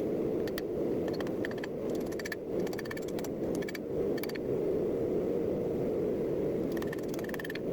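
Steady roar of a forge burning, with scattered light metallic clicks and clinks over it.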